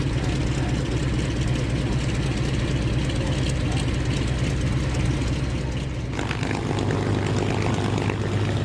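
Republic P-47 Thunderbolt's Pratt & Whitney R-2800 radial engine idling with its propeller turning, a steady low drone. About six seconds in, the sound changes abruptly to a P-51 Mustang's Merlin V-12 engine idling.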